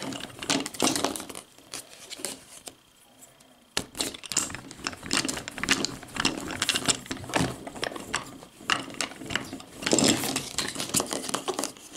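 Toy rolling pin rolling out Play-Doh on a tabletop, with irregular clicks, knocks and rolling noise as the pin and hands bump the table. A quieter stretch about two seconds in ends with a sharp knock.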